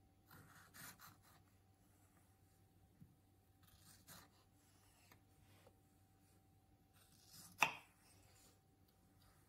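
Kitchen knife cutting strawberries on a wooden chopping board: quiet slicing strokes with small taps of the blade on the board, and one sharp, louder knock of the knife on the board about three quarters of the way through.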